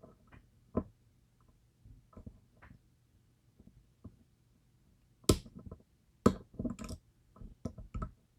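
Lock picks clicking and tapping against the sharkfin pins inside a DOM IX Twinstar cylinder while it is being picked under tension. Scattered soft clicks, then a louder run of sharp clicks in the second half.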